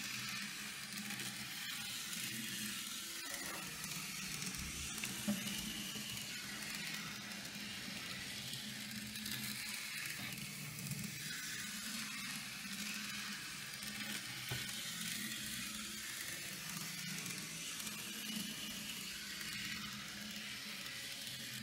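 Z-scale model tram on a Rokuhan Shorty motor chassis running on the layout's track: a steady low hum under an even hiss, with one sharp click about five seconds in.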